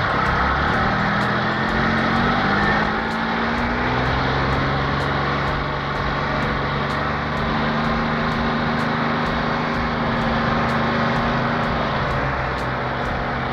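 Car engine sound effect, running steadily as the car drives along at an even speed, its pitch settling slightly lower about three seconds in.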